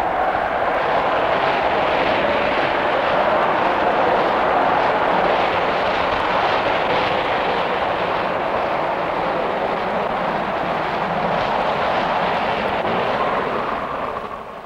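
A loud, steady roar of vehicle noise that fades out near the end.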